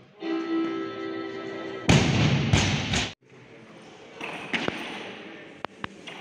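A steady buzzer tone lasting under two seconds, the referees' down signal, then a loaded barbell dropped from overhead crashes onto the wooden lifting platform and bounces twice. Near the end come a few sharp clicks from another barbell as it is pulled off the platform.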